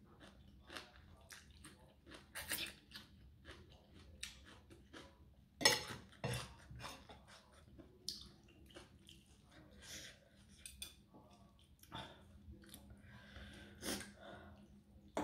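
Close-miked eating: chewing and slurping soft rice noodles in curry sauce, with a fork and spoon clinking and scraping on a plate. The sounds come as many short, irregular clicks and smacks, with one brief louder noise about six seconds in.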